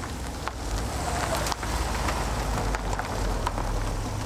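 A car driving past slowly: a steady low engine rumble and tyre noise, with a few scattered small clicks.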